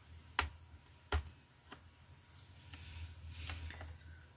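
Laptop handling: two sharp clicks about three quarters of a second apart and a fainter third, a hand or tool knocking against the plastic underside of a laptop, then a soft rustle of handling that builds near the end.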